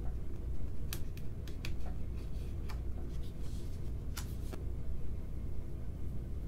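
Thin plastic screen-protector film being handled as it is pressed and smoothed onto a smartphone screen and its backing sheet peeled: several short crackles and rubs, most of them in the first half, over a steady low hum.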